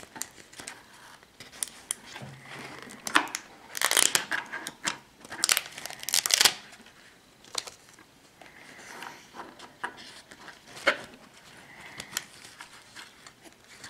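Hands peeling a seal sticker and unwrapping a paper and plastic package: irregular crinkling and tearing, busiest in a run of rustles about four to six seconds in, with a single sharp click near the end.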